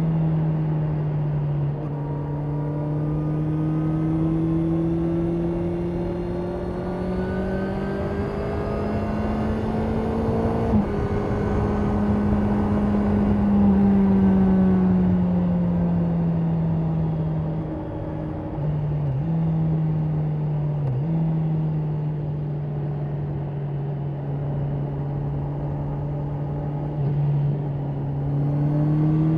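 2024 Honda CB650R E-Clutch's 649 cc inline-four engine and exhaust running at road speed, with wind rush. The engine note drops with an upshift about two seconds in and climbs steadily under acceleration until about halfway. It then falls away as the bike slows, with two brief dips in the note about two-thirds of the way through, and rises again at the very end.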